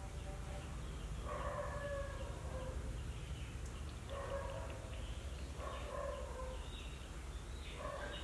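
Four drawn-out animal calls, each about a second long and falling slightly in pitch, over a steady low hum.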